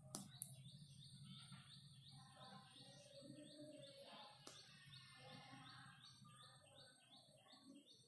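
Faint bird calling over and over, a short high chirp repeated about three times a second, with two sharp clicks near the start.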